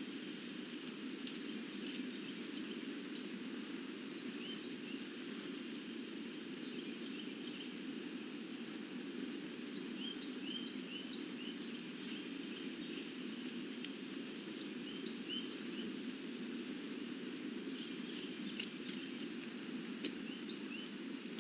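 Steady outdoor background hiss with faint, short bird chirps scattered through it in small clusters, the busiest about halfway through and near the end.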